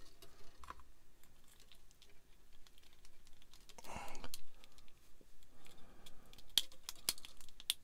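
Small sharp clicks and taps of plastic model kit parts being handled and pressed together while wiring is fitted, irregular, with the loudest few near the end, and a short soft hiss about four seconds in.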